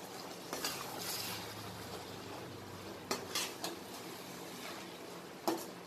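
Long-handled steel ladle stirring eggplant, onion and tomato gravy in a stainless steel pot, scraping and clinking sharply against the pot's sides several times.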